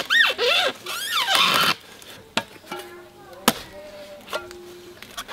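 A machete chopping into a felled coconut palm trunk, with a few sharp separate strikes in the latter half. High rising-and-falling squealing calls repeat over the first second or two.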